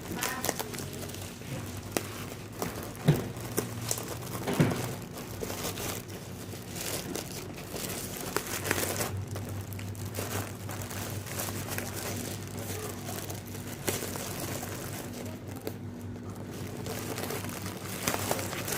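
Plastic packaging crinkling and rustling as a parcel is unwrapped by hand, with scattered sharp clicks and taps, the loudest about three and four and a half seconds in, over a steady low hum.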